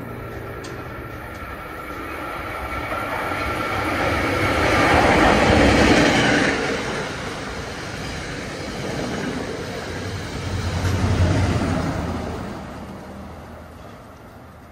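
NJ Transit train hauled by a PL42AC diesel-electric locomotive, passing with a rumble and clickety-clack of wheels on rail joints. It grows loudest about six seconds in, swells again about eleven seconds in, then fades as it moves away.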